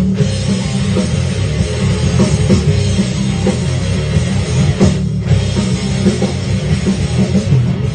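Rock music with a drum kit: an instrumental passage with no singing, loud and steady.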